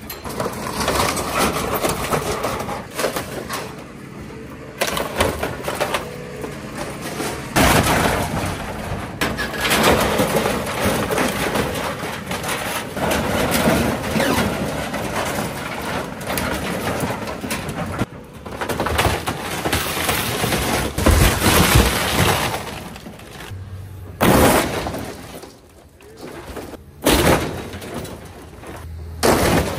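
Excavator grapple tearing apart and crushing a box truck: irregular crunching and tearing of sheet metal with glass and plastic breaking, broken by several heavy crashes.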